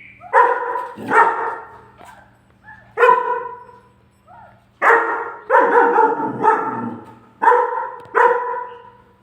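German shepherd puppy barking in an angry outburst: about eight loud barks, irregularly spaced, some coming in quick pairs.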